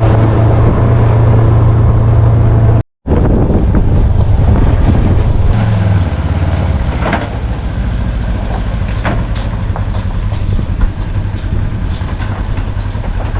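Engine running steadily with a deep hum, cut off briefly about three seconds in, with scattered knocks and clatter in the second half.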